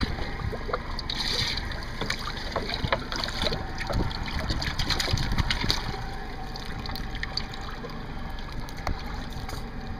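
Water splashing and sloshing in a boat's livewell as a dip net is swept through it, with scattered small knocks.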